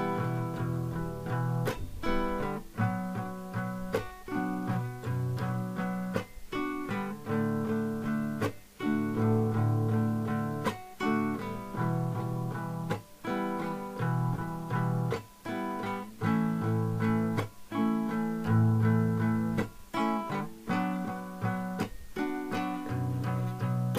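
Acoustic guitar strummed in a 6/8 rhythm. Chords change every second or two, broken by short, sharp muted chopping strokes.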